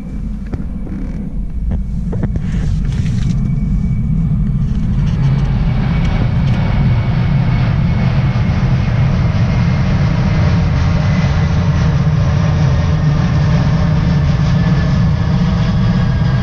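Low-flying aircraft passing overhead: a loud, steady low rumble that builds over the first few seconds and then holds, with a high engine whine sliding slowly down in pitch.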